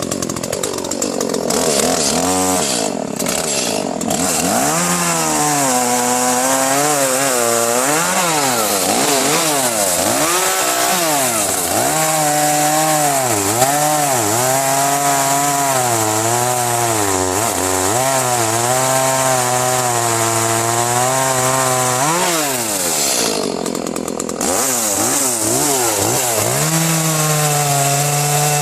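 Echo CS-310 30.5 cc two-stroke chainsaw cutting through a log at full throttle, the engine pitch sagging under load and climbing back again and again. About 23 seconds in it eases off briefly, then revs up and cuts on.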